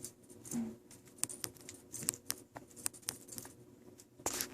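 Scattered light clicks and taps at an uneven pace, from kittens playing with toys.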